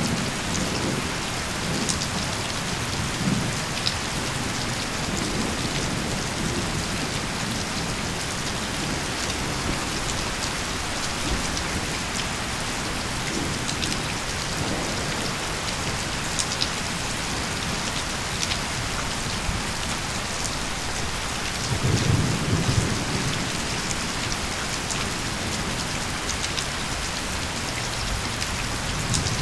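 Thunderstorm: steady rain falling, with scattered individual drops ticking. Low thunder rumbles at the start and again more strongly about three-quarters of the way through.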